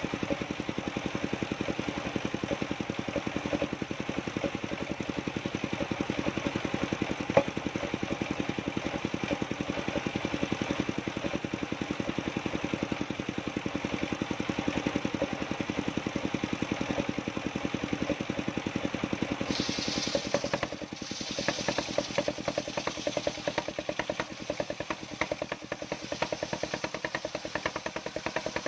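An engine running steadily with a rapid, even pulse. There is a single sharp click about seven seconds in, and about twenty seconds in a hiss joins and the note shifts.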